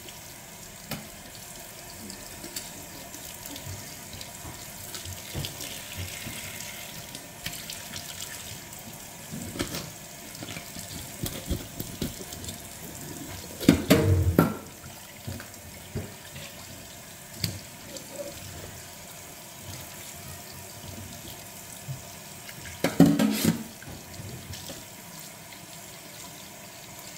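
Kitchen faucet running into a stainless steel sink while raw chicken pieces are rinsed and turned under the stream. Two louder thumps stand out, one about halfway through and one later.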